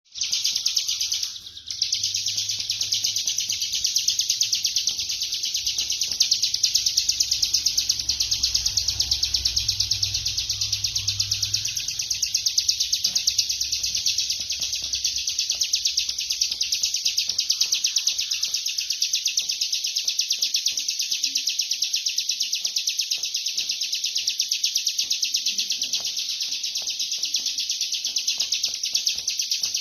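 Ciblek kristal (bar-winged prinia) singing its 'ngebren' song: a very fast, dense, drill-like trill delivered almost without pause, breaking off only briefly about a second and a half in.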